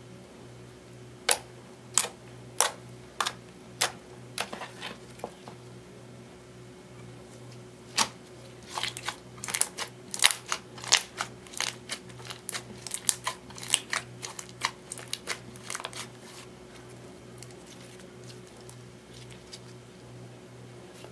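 Glittery clear slime mixed with eyeshadow being pressed and poked by hand, giving sharp wet clicks and pops. At first single pops come about half a second apart, then a quick, dense run of them, then they stop. A faint steady low hum runs underneath.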